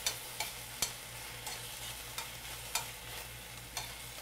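Metal tongs tapping and scraping against a stainless steel sauté pan while spinach and sour cream are stirred together, with irregular clicks roughly two a second over a steady sizzle.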